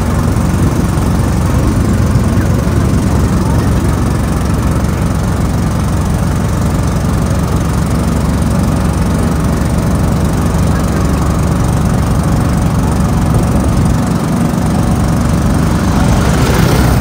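Small engine of an open passenger cart running steadily under way, a low rumble with a fast even pulse.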